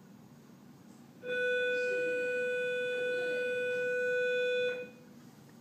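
A single steady electronic tone, like a held organ note, starting about a second in and lasting about three and a half seconds, then cutting off. A faint voice is under it.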